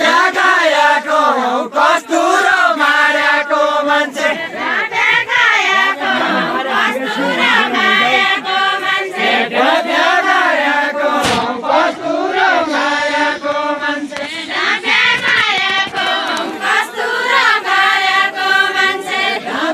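A group of voices singing a Deuda folk song in unison, chant-like and unaccompanied, in long sliding phrases. A single sharp knock cuts in a little past halfway.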